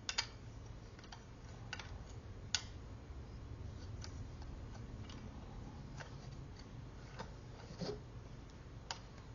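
Light, irregular clicks and taps of a Rode NT-USB microphone being handled and fitted onto its small tripod stand, about one a second, with a sharper click a couple of seconds in.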